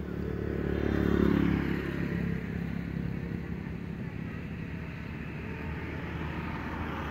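A motor vehicle engine running, off camera. It grows louder to a peak about a second in, then eases back and runs on at a steady level.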